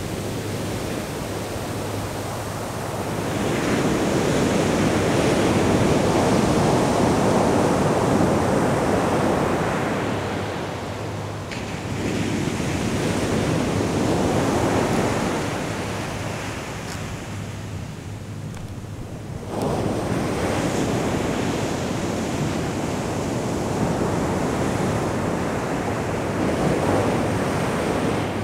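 Ocean surf breaking and washing up a sandy beach, the rush of water swelling and fading every several seconds.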